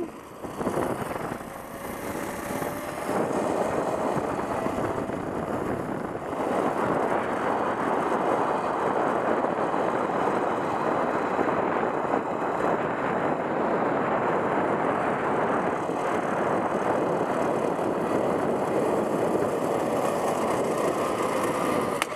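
Zip-line trolley pulleys running fast along the steel cable, a steady rushing whir mixed with wind on the microphone, with a faint rising whine in the first few seconds. It cuts off sharply at the end as the rider reaches the platform.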